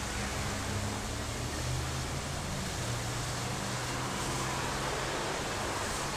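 Water jetting from an open fire hydrant in a tall column, a steady rushing hiss, with a low engine hum underneath.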